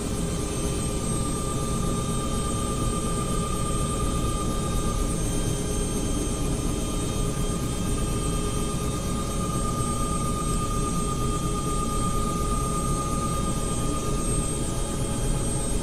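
Helicopter engine running during start-up: a steady high whine with several held tones over a dense low rumble, unchanging in level.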